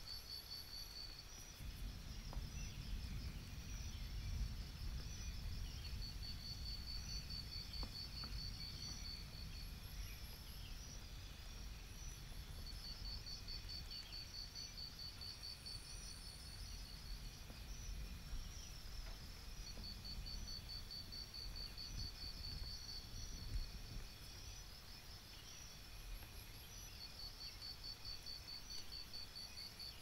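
Crickets chirping in pulsed trills that come and go every few seconds, with fainter, higher chirping throughout. A low rumble runs underneath.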